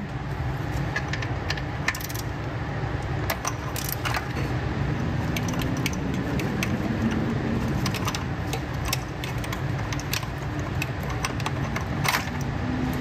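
Scattered metallic clicks and clinks from a Torx-bit socket and ratchet working on the idle air valve bolts of an engine, with a louder clink near the end, over a steady low background hum.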